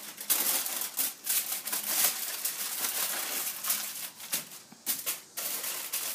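Aluminum foil crinkling in irregular crackles as gloved hands fold it over a rack of ribs.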